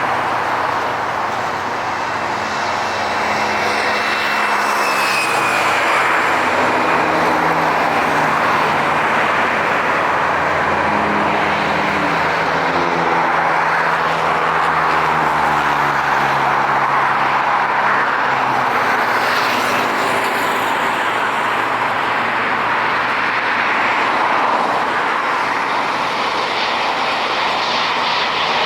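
Jet airliner taking off, its engines giving a loud, steady roar, with engine tones sliding down in pitch as it passes.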